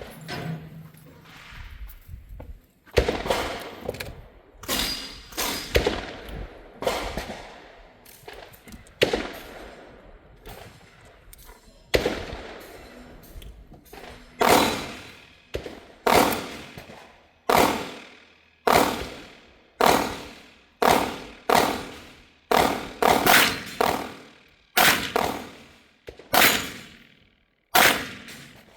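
A long series of gunshots at a shooting range, some loud and close and others fainter, coming about once or twice a second through the second half. There are more shots than one five- or six-shot revolver could fire without reloading, so more than one gun is firing.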